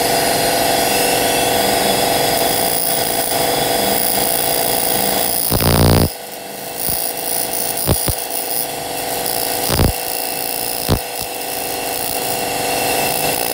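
Handheld fiber laser cleaner working a metal plate: a steady loud buzzing hiss that cuts back sharply about six seconds in, then short bursts about every two seconds.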